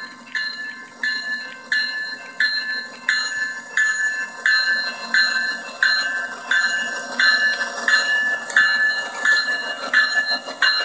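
Locomotive bell of an EMD SD70ACe diesel ringing steadily, about three strikes every two seconds, as the locomotive passes, with the train's running noise underneath.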